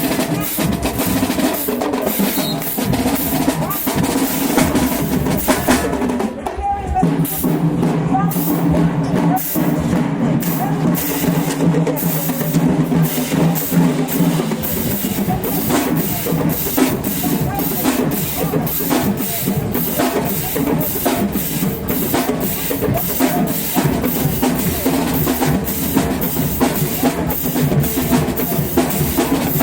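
College marching band playing: a drumline of snare and bass drums beats steadily, with held low notes from the horns sounding clearly about a third of the way in.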